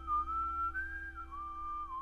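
Human whistling of a slow melody, one clear note at a time, held and stepping up and down between pitches, over a faint steady drone.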